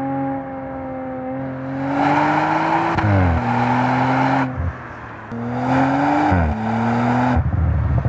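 Audi RS4 Avant's twin-turbo 2.9-litre V6 accelerating hard, its note rising and then dropping with an upshift about three seconds in. It pulls again about five seconds in and shifts up once more, ending with a short deep burst.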